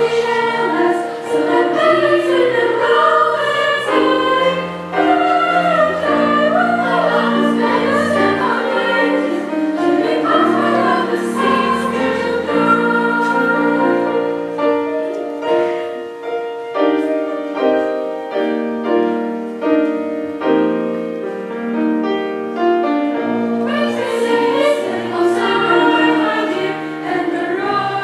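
A school choir singing in several parts. About halfway through, the singing turns to shorter, separated notes, and a fuller, brighter passage follows near the end.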